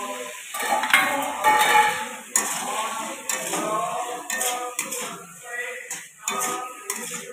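Flat metal spatula stirring cubed potatoes in a metal kadai, scraping and clanking against the pan in a quick, irregular run of strokes.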